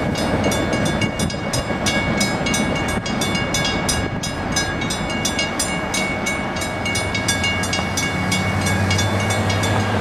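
Railroad grade-crossing bell ringing in rapid, even strikes over the rumble of a double-stack freight train's cars passing over the crossing. A steady low hum comes in about eight seconds in.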